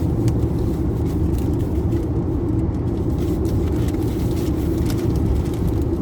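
Steady low rumble of a car heard from inside the cabin, with a few faint crackles on top.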